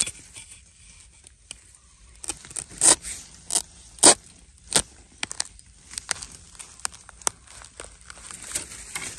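A long-handled digging spade chopping into the soil and the base of a wild bamboo shoot to cut it free. It makes a run of sharp chops, the strongest about three and four seconds in, followed by lighter strikes and the scrape and crackle of soil and dry leaves.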